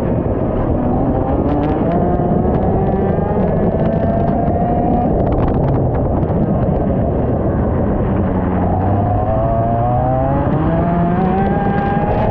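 IAME X30 125cc two-stroke kart engine at racing speed, its pitch climbing as it accelerates, easing off about halfway, then climbing again near the end, over a dense rushing noise.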